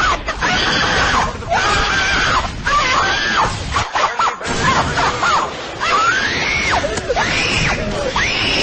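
A person screaming in long, high-pitched wails whose pitch arches up and down, over a noisy background with music, as a meme sound-effect clip.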